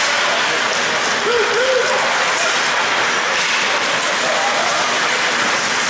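Steady hockey-rink noise during play: an even, applause-like hiss with faint distant shouts from players and spectators.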